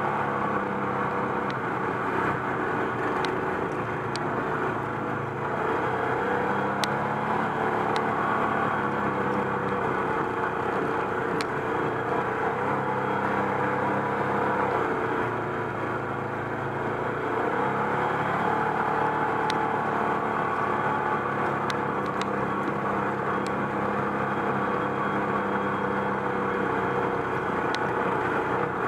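ATV engine running under way, its pitch dipping and rising as the throttle changes, with a few brief sharp ticks scattered through.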